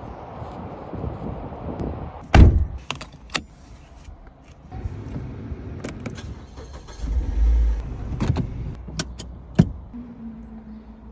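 Car door of a 2010 Mazda Axela Sport shut with a loud thud about two seconds in, followed by scattered clicks and knocks from the cabin. About seven seconds in, the push-button start brings its 1990 cc petrol engine to life with a short low burst, and it settles to a low idle.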